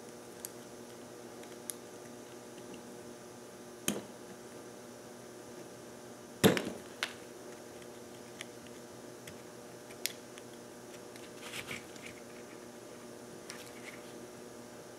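Scattered light clicks and taps of small metal and plastic parts being handled as a metal retainer is fitted into the body of a Mercury outboard impulse fuel pump during reassembly. One sharper knock comes about six and a half seconds in.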